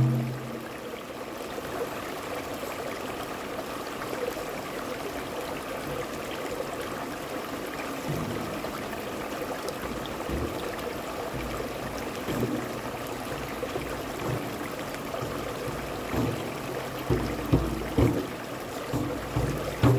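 Shallow stream rushing steadily over rocks. In the last few seconds a run of low, uneven thumps comes in over the water.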